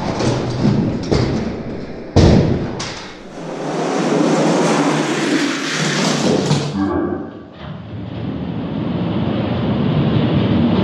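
Spin Master die-cast monster trucks rolling down a plastic drag-racing track, with a sharp thud about two seconds in and a lighter knock just after.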